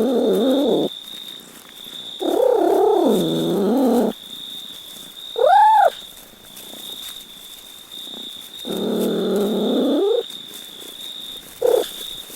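Domestic cat meowing: about five calls, long drawn-out wavering meows near the start, middle and later, a short high rising-and-falling meow about halfway, and a brief one near the end. A faint steady high whine runs underneath.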